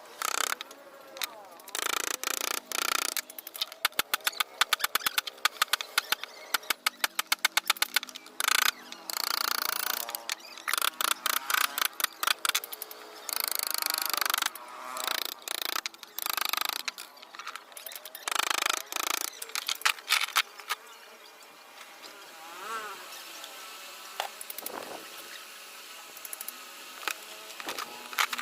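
Wood being hand-carved with a chisel: quick runs of sharp taps between short scraping bursts as the blade cuts, quieter for the last several seconds.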